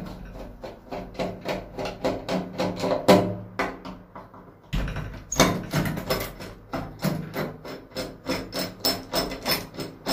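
Screwdriver turning out the mounting screws of a round doorknob lock's metal rose plate: a run of quick metal clicks and scrapes, about four or five a second, with a short pause about four seconds in.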